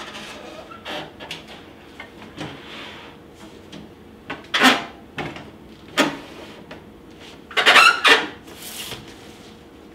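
Light knocks as a large computer case is stood upright on a table, then several loud crinkling rustles of the plastic bag being pulled off it, the loudest near the end.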